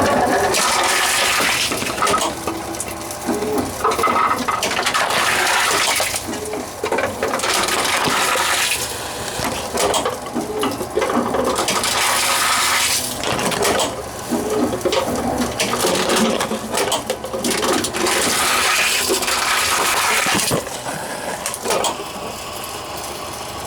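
Tomra T-X2 reverse vending machine taking in plastic bottles one after another: a rushing, rattling burst a second or two long each time a bottle goes through, about nine times.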